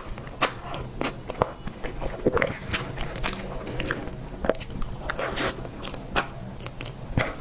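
Close-miked eating: irregular wet mouth clicks and crackles of biting and chewing soft dessert, over a steady low hum.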